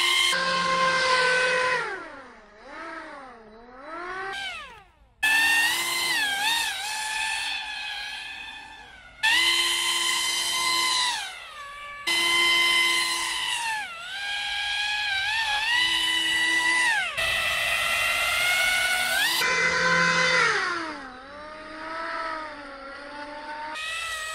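Radio-controlled boat's electric motor whining at speed, its pitch rising and falling with the throttle. The sound drops away and jumps back in abruptly a few times.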